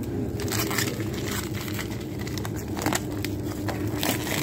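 Clear plastic bags of raw meat crinkling and crackling in irregular bursts as a gloved hand picks them up and handles them, over a steady low hum.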